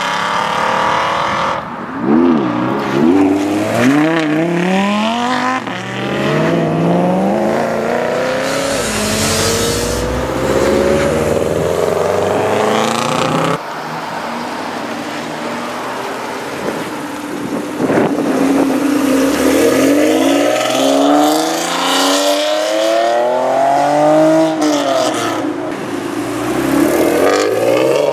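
Sports car engines accelerating hard, the pitch climbing through each gear and dropping at every upshift, several times over. After an abrupt cut about halfway, the engine heard is a red first-generation Acura NSX's V6 pulling away through the gears.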